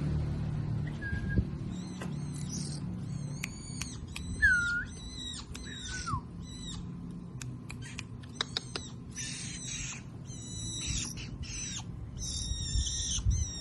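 Small songbirds calling, many short high-pitched chirps repeated in quick series, with one clearer, louder whistle about four and a half seconds in, over a steady low background rumble.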